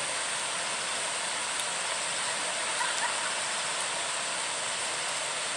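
Steady rushing noise with no distinct events, and a couple of faint light clicks about three seconds in.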